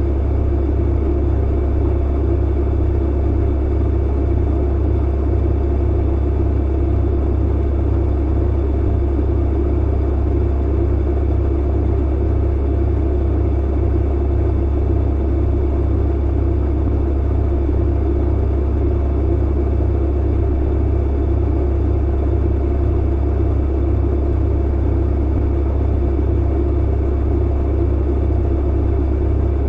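Clothes dryer running: a steady low hum and rumble from the motor and turning drum, even throughout.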